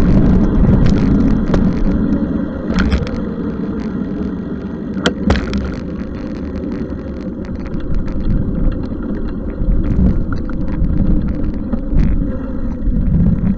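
Steady traffic and road noise heard from a bicycle on a street, a low rumble with scattered sharp clicks.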